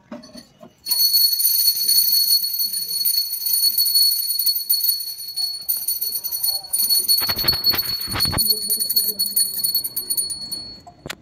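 A small puja hand bell ringing continuously during a household worship ritual, a high ringing that starts about a second in and holds until near the end. A short rush of noise comes just past seven seconds.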